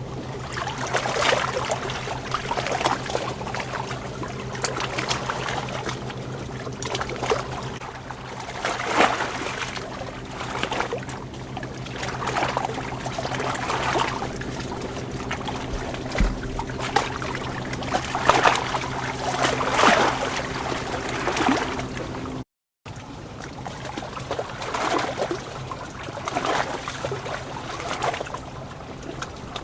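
Running water splashing and rushing in swells every second or two, over a steady low hum. The sound drops out completely for a moment about two-thirds of the way through.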